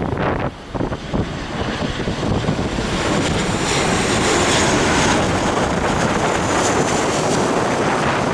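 Jet airliner passing close overhead on landing approach: the engine noise swells over the first few seconds and stays loud, with a faint high whine. Wind gusts on the microphone at the start.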